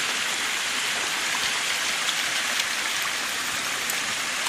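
A tall, thin waterfall falling in a narrow thread, giving a steady, even splashing hiss.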